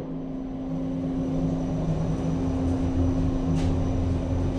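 Elevator car travelling with its doors shut: a steady hum with a low rumble that swells about a second and a half in, and one faint click near the end.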